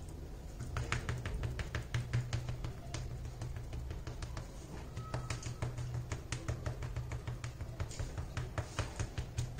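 Sponge dauber tapping quickly on an MDF board as white gesso is dabbed on, a string of short soft taps at several a second, over background music.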